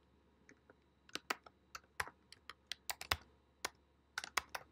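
Typing on a computer keyboard: an irregular run of keystroke clicks starting about a second in, as a name is entered into a web form.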